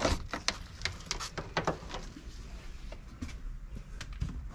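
Light plastic clicks and taps from hands handling wiring and trim at a van's door and dash: a quick run of them in the first two seconds, then a few scattered ones, over a low steady rumble.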